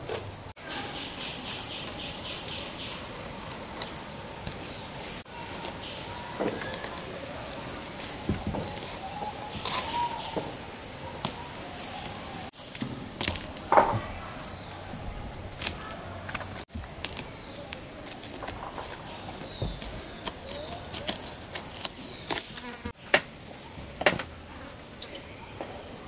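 A steady high-pitched drone of insects, broken off briefly several times, with scattered light knocks and taps, the sharpest about halfway through.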